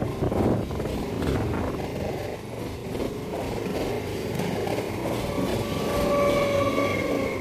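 Electric suburban local train (EMU) running along the track, with steady wheel-and-rail noise. A steady high whine joins in about five and a half seconds in.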